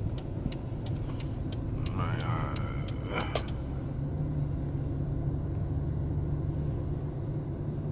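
Car interior noise while driving: a steady low rumble of engine and tyres heard from inside the cabin, with a brief faint voice about two seconds in.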